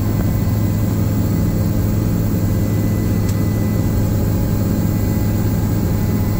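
Helicopter cabin noise: the steady low drone of the rotor and engine, heard from inside the cabin in flight.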